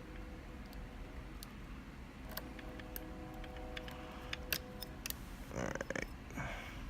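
Light metallic clicks and ticks of a dimple lock pick working the pins inside a Thirard Trafic 6 dimple lock cylinder, with a short scraping rattle near the end. No tension is on the core, so the pins are not setting.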